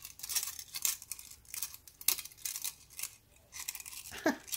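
Thin metal hoop earrings clicking and rattling against one another and scraping on a plastic-sleeved card as they are fiddled back onto it, with light crinkling of the plastic: a run of small, irregular clicks.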